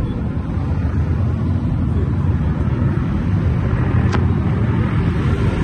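Motorcycle engine idling with a steady low rumble, with a brief thin high note about four seconds in.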